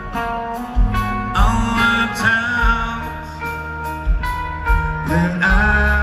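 Rock band playing live: electric guitar over a steady kick-drum beat, with a male lead vocal coming in about a second and a half in and again near the end.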